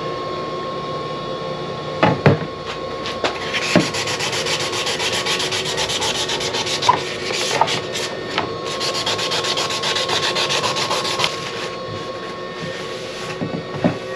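Wet sanding by hand with 1200-grit sandpaper on a painted fan shroud: fast back-and-forth rubbing strokes, strongest in the middle and easing off near the end. A few light knocks come about two seconds in, over a steady hum.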